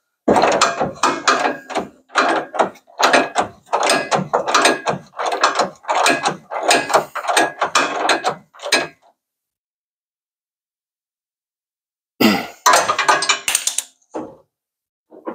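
A ratchet tightening a truck-bed mounting bolt: short runs of ratcheting clicks, one or two strokes a second, for most of the first nine seconds. After a pause of about three seconds, a few more strokes come near the end.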